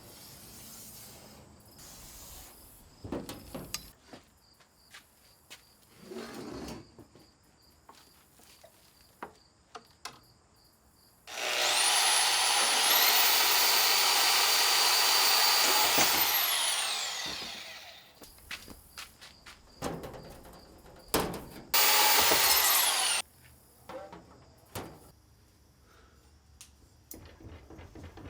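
A power tool runs twice. The first run starts about eleven seconds in: it spins up to a high whine, holds for about five seconds, then winds down. A second, shorter run comes a few seconds later. Scattered clicks and knocks of tool handling fall between the runs.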